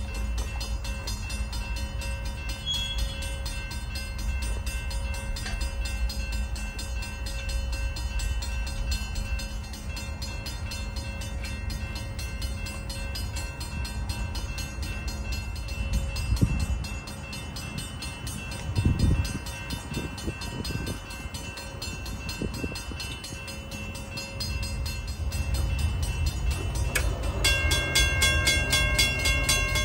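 A steady low rumble with a few knocks as the gate arm is handled and fitted, then about 27 seconds in the crossing gate mechanism's motor starts and runs with a steady whine as it raises the arm.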